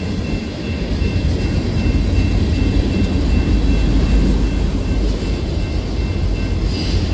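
Union Pacific mixed freight train's cars rolling past close by: a steady low rumble of wheels on the rails, with a faint, steady high-pitched tone over it.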